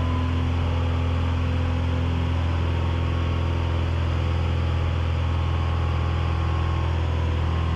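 Cessna 182's piston engine and propeller at climb power after takeoff, heard inside the cockpit as a steady low drone.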